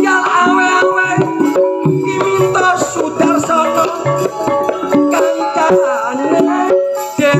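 Javanese gamelan music: struck metallophones ringing out held tones over a steady pattern of hand-drum strokes.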